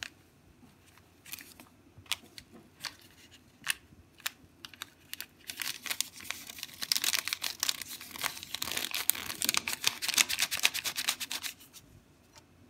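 A small paper sachet of baking powder crinkling and rustling as it is handled and shaken out over the bowl: scattered light crackles at first, then about six seconds of dense, rapid crinkling from about halfway through.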